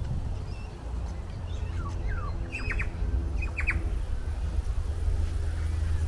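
Wind rumbling on the microphone, with a bird calling in the middle: a couple of quick falling notes, then two short bursts of harsh squawks about a second apart.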